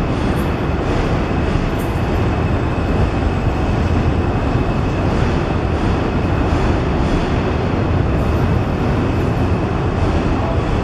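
New York City Subway D train rolling slowly around a curve on elevated track, a steady low rumble of steel wheels on rail.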